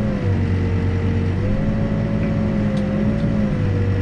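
Backhoe's diesel engine running while it digs, with a steady whine that wavers slightly in pitch and a low hum that drops out and returns twice.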